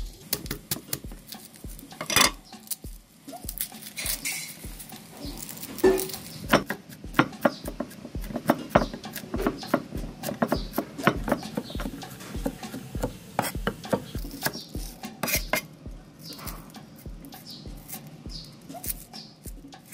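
Cleaver chopping garlic on a thick wooden chopping board: many irregular, sharp knocks of the blade striking the wood. Underneath, a steady low beat about twice a second.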